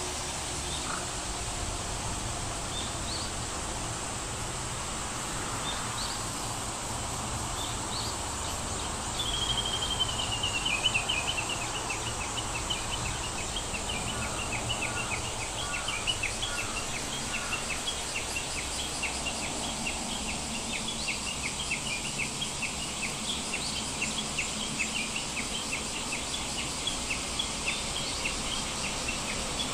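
Countryside ambience: a steady high-pitched insect drone with a few scattered bird chirps. About a third of the way in, a quick descending trill starts, followed by rapid short chirps that repeat a few times a second.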